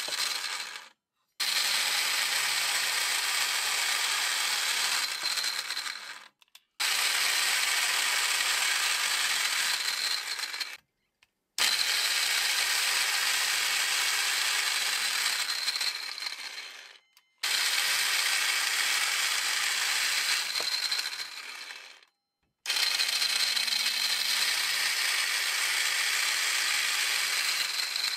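Makita 4190D cordless circular saw, running on replacement 21700 battery cells, cutting through small wood blocks five times in a row. Each cut starts suddenly, runs steadily for about four seconds and dies away, with a short silence between cuts.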